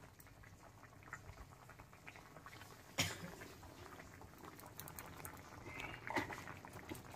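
Pan of chicken and vegetable stew bubbling at a simmer: a faint, steady run of small pops and plops, with one sharp click about three seconds in.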